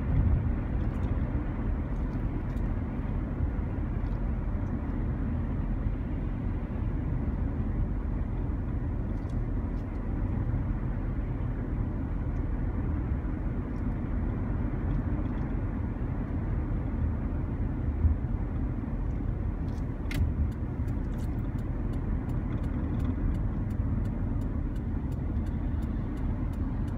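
Steady low road and engine rumble inside a moving car's cabin. From about two-thirds of the way through, a turn signal ticks steadily.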